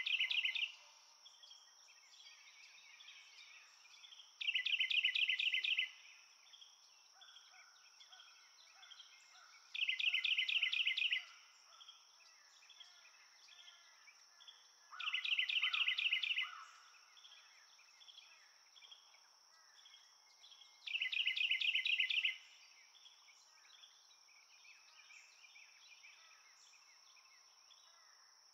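Marsh nature ambience: a steady high insect drone, with a loud, rapid pulsed trill that repeats about every five and a half seconds and faint bird chirps between the trills.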